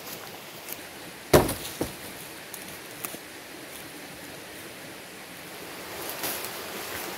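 A heavy wooden thud about a second in, with a smaller knock just after, as a cut log is dropped onto a pile of logs and branches, over a steady outdoor hiss. Rustling in dry leaf litter builds near the end.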